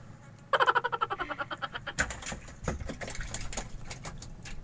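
A rapid, rattling pitched chatter lasting about a second and a half, then a run of sharp clicks and a few dull knocks as a freshly caught fish is handled and unhooked in a wooden boat.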